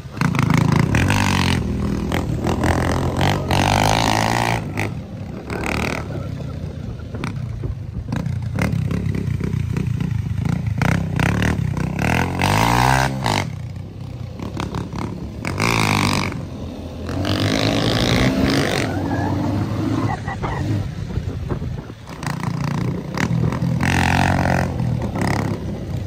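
200 cc off-road motorcycle engines running on a dirt track, the engine of the bike carrying the camera loudest. The engine pitch rises and falls repeatedly as the rider opens and closes the throttle, with one sharp rev and drop about halfway through.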